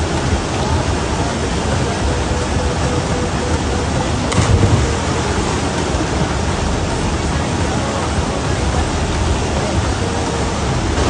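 Waterfall rushing as a steady, dense roar of falling water, with a brief louder moment about four seconds in.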